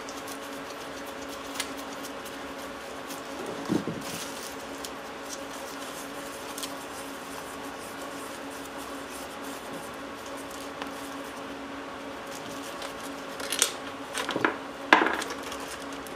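Metal blade scraping and prying at a taped epoxy-and-sheet-metal shell on an engine cylinder to work it loose, with short metallic scrapes and clicks, one about 4 s in and a cluster near the end, over a steady low hum.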